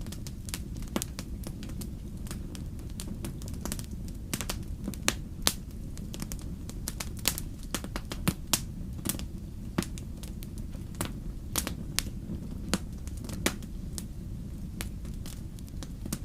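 Wood campfire crackling: a dense, irregular run of sharp snaps and pops, a few louder than the rest, over a steady low rumble.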